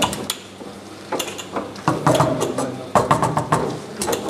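Foosball table in play: sharp clacks of the ball struck by the rod-mounted players and hitting the table, with rods knocking as they are spun and slid.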